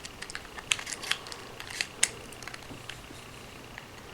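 A scatter of light clicks and taps from a plastic car key fob being handled as its metal emergency key blade is slid back in and latched.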